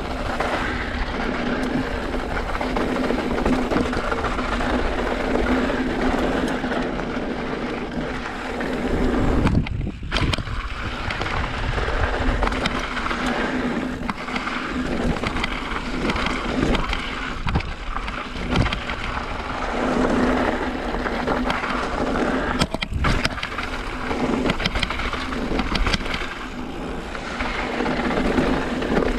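Mountain bike rolling fast down a rocky dirt trail: the tyres crunch over loose rock, and the bike clatters with many sharp knocks over the bumps.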